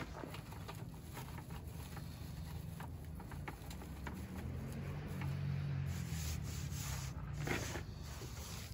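Dry pine wood shavings rustling and crackling as they are packed by hand into a tin-can hobo stove as a tinder bundle, with the crinkling strongest near the end. A steady low rumble runs underneath.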